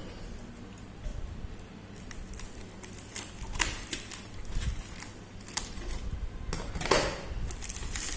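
Irregular light clicks and taps as accessories are handled and unpacked, with two louder knocks, one about three and a half seconds in and one near the end.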